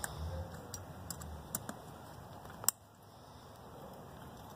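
Light clicks and rattles of hands working a studded motorcycle saddlebag's lock and strap clip, with a few soft thumps in the first second and a half, then one sharp click a little under three seconds in.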